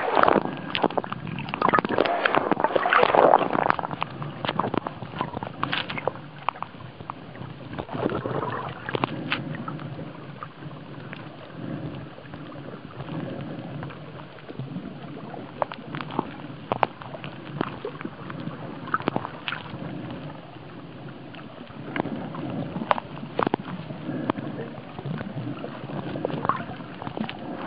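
Water splashing and sloshing around the camera at the surface for the first few seconds, then the muffled wash of water heard with the microphone underwater, with many scattered sharp clicks and crackles.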